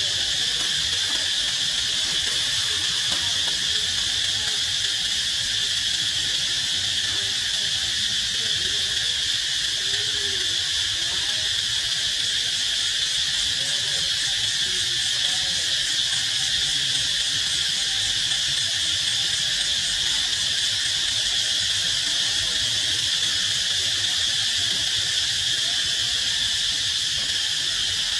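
Steady chorus of insects droning at a high pitch without a break.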